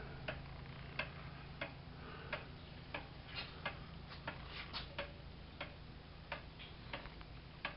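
Late-1800s Seth Thomas eight-day pendulum wall clock ticking steadily and evenly, about three ticks every two seconds: the movement running well.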